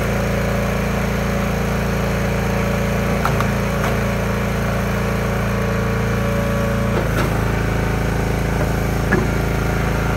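Engine running steadily at a constant speed, with a few brief knocks.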